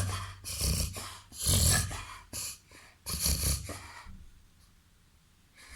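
A Labrador cross dog reverse sneezing: a run of loud, forceful bursts of breath pulled in through the nose, stopping about four seconds in.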